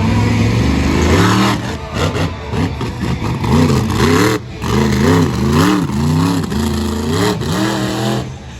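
An engine being revved over and over, its pitch rising and falling in quick blips about twice a second.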